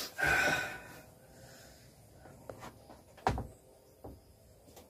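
A short breathy rush, then a few faint clicks and one sharper knock about three seconds in: small handling noises as a spoon is brought up to the nose.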